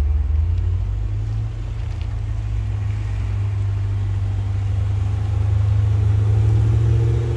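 BMW E39 M5's V8 engine and exhaust running as the car drives slowly past, a steady low drone that grows a little louder about five seconds in.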